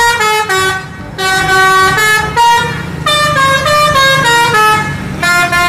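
Tour bus's multi-tone musical air horn (a 'telolet' horn) playing a quick tune of changing notes, with a short break about a second in, over the low running of the bus engine.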